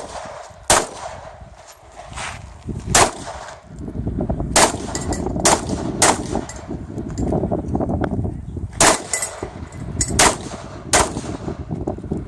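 Pistol shots fired one at a time at irregular intervals, about eight in all, during a practical pistol stage. A low rumbling noise runs under them from about four seconds in.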